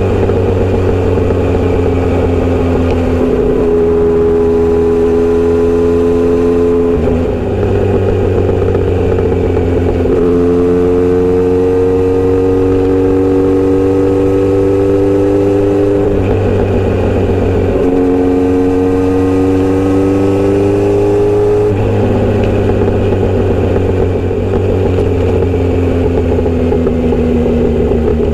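Inline-four motorcycle engine running under way, its pitch climbing three times through the gears with a drop at each shift, then easing down near the end.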